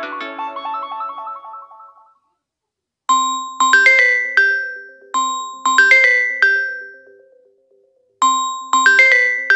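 Samsung Galaxy A32 ringtones: one ringtone's melody ends and fades out about two seconds in. After a second of silence the next ringtone starts, a short motif of struck notes that ring and die away, played twice and begun again near the end.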